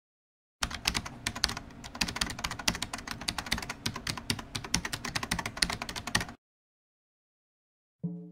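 Rapid, irregular keyboard typing clicks that start about half a second in and stop abruptly after about six seconds. A plucked-string tune begins right at the end.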